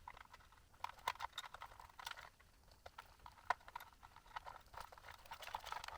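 Faint, irregular plastic clicks and scrapes as a tight 3D-printed plastic nut is forced onto a threaded fitting.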